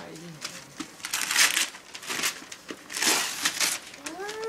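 Christmas wrapping paper being torn and crumpled off a gift by hand, in rustling bursts, the loudest about a second and a half in and again around three seconds in. Near the end a cat begins a long meow that rises in pitch.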